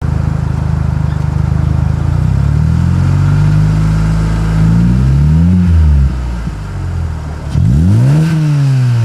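2003 Volkswagen Jetta 2.0's four-cylinder engine heard through its exhaust, running steadily and then revved twice. The first rev is a slow climb that peaks about five and a half seconds in and drops. The second is a quick jab around eight seconds that falls back slowly.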